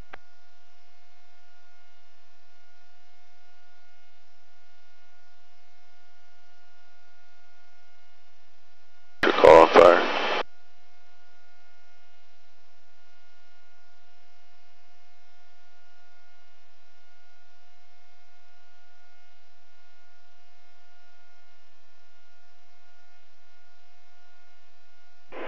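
A steady electrical hum with a whining pitch on the helicopter's radio audio, broken about nine seconds in by a loud burst of noise lasting about a second.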